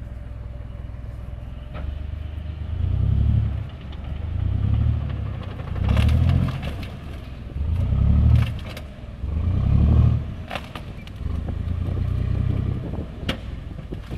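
TAM VCTP tracked armoured vehicle's diesel engine revving in about six low, heavy surges, one every second and a half to two seconds, as it climbs onto and crushes a felled tree. A few sharp cracks of breaking wood and track clatter.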